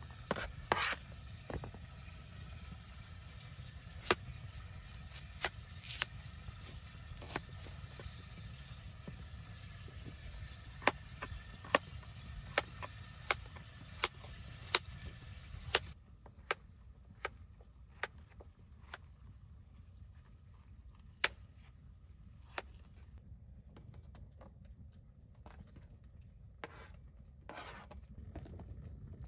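Knife chopping onion and carrot on a plastic cutting board: single sharp knocks of the blade on the board, spaced irregularly, coming about every half second to a second in the middle stretch and more sparsely later.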